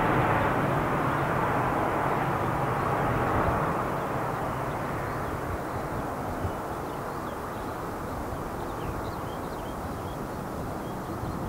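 Airbus A330-200 with Rolls-Royce Trent 700 turbofans climbing away after take-off, a steady jet engine rumble fading as the aircraft recedes. The higher part of the sound dies away first, leaving a low rumble.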